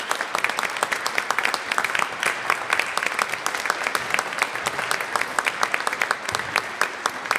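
Audience applauding, many hands clapping in a dense, continuous patter.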